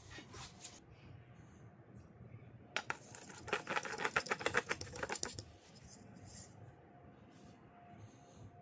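Threaded steel rod rattling and scraping against the metal of an old spin-on oil filter as it is pushed into the filter's centre hole: a quick run of metallic clicks lasting about two and a half seconds, starting about three seconds in, with light handling noise around it.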